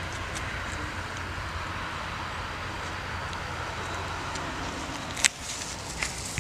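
A car running steadily, with one sharp click about five seconds in.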